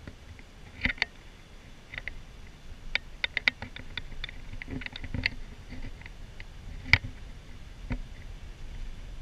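Irregular clicks and light knocks of rattling trim or fittings inside a moving van's cabin, over a faint low road rumble. The loudest knock comes about seven seconds in.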